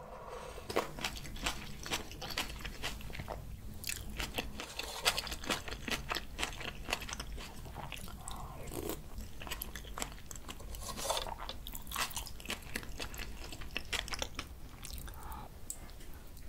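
Close-miked chewing and wet mouth sounds from someone eating bibimbap and doenjang (soybean-paste) stew, with many small irregular crunching clicks.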